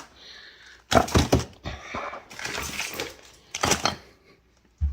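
Knocks and thuds of a bag of ice being handled and pushed into a refrigerator, with a few sharp knocks about a second in and again near the end.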